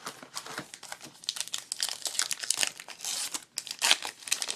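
A trading-card pack's wrapper being torn open and crinkled by hand, a quick run of crackling rustles that gets louder around three and four seconds in.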